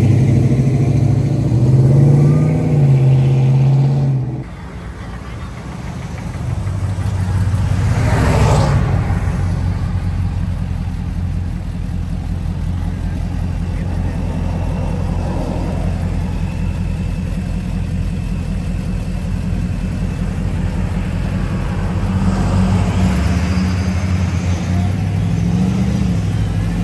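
Mopar muscle car engines idling and revving as cars pull away. The level drops suddenly about four seconds in, and one car passes close and loud about eight seconds in.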